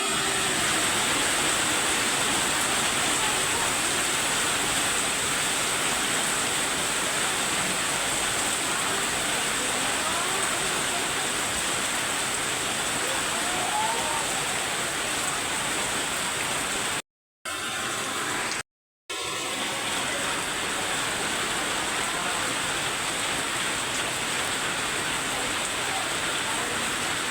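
Heavy tropical rain pouring down steadily, a dense even hiss that cuts out twice for a moment a little past halfway.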